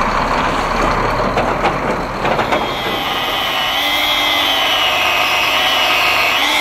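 Angle grinder cutting tread grooves into a rubber tyre, starting about two and a half seconds in, its whine wavering in pitch as the disc bites into the rubber. Before it comes an even rumbling noise.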